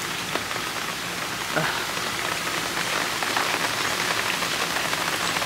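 Heavy rain pouring down and splashing onto a swimming pool's surface: a steady, even hiss.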